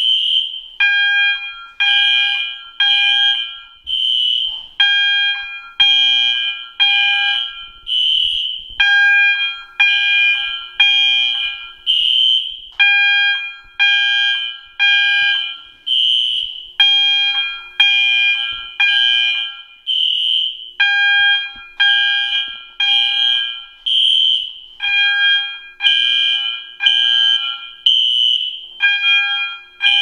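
Two System Sensor fire alarm horns, an SS-24 MASS and a P1224 SpectrAlert Classic set on its electromechanical code 3 tone, sounding together with the fire alarm system in alarm after its pull station was pulled. Each beats out the temporal code 3 pattern of three pulses and a pause, repeating about every four seconds. The two horns have completely different tones and run slightly out of step.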